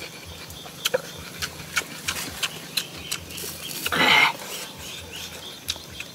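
A man's short, breathy vocal exclamation with falling pitch about four seconds in, over scattered faint sharp clicks while he picks apart grilled bullfrog with his fingers.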